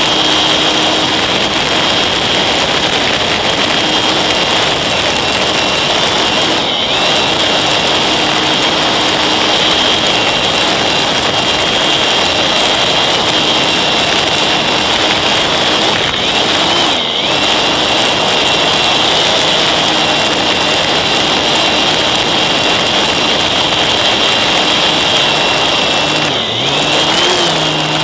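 Electric motor and propeller of a Slow Stick RC plane running steadily, heard from a camera on the airframe: a high steady whine over rushing wind noise. The whine dips and picks up again three times as the throttle eases.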